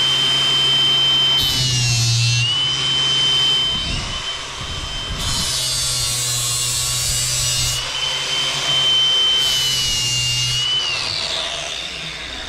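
Ryobi ONE+ HP cordless angle grinder with a 40-grit flap disc grinding the cutting edge of a steel mower blade. Its motor runs at a steady high whine, and three times the pitch sags a little as a grinding noise rises, each time the disc bites on a pass. A little before the end the grinder is switched off and its whine falls away as it spins down.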